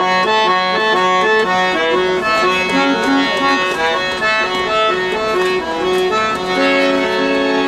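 Hand-pumped harmonium playing a stepping melody over a held low drone note, with no singing: an instrumental passage between sung verses of a Bengali folk song.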